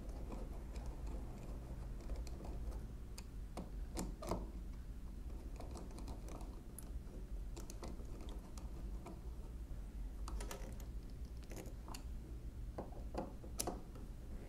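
Scattered faint metallic clicks and ticks as a screwdriver turns and seats a small screw in the steel carriage-lock mechanism of a 1920s Monroe mechanical calculator, over a low steady hum.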